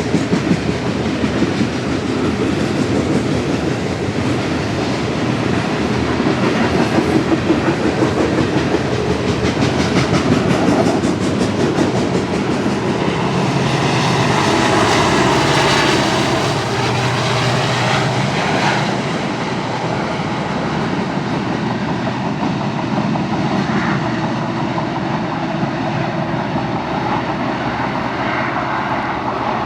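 Union Pacific coal train's cars rolling past, their wheels clacking in a fast, steady rhythm over the rail joints above a continuous rumble; the clacking thins out over the second half.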